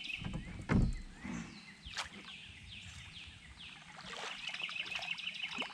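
Fishing reel being cranked in short spells, its gears ticking rapidly, while a hooked bass is reeled in toward a kayak. There is a dull thump about a second in and a sharp click a second later.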